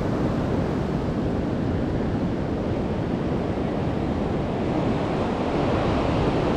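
Ocean surf breaking on a sandy beach, a steady rushing wash, with wind buffeting the microphone.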